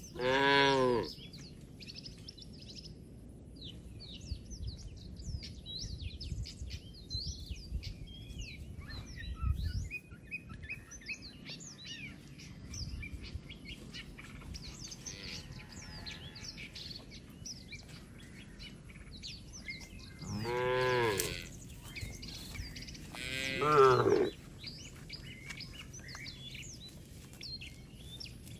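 Cattle mooing three times: one moo right at the start and two more close together near the end, each about a second long and rising then falling in pitch. Small birds chirp and twitter throughout the background.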